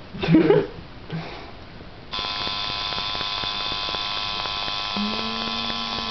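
Tattoo machine buzzing steadily as it inks the skin, switching on about two seconds in.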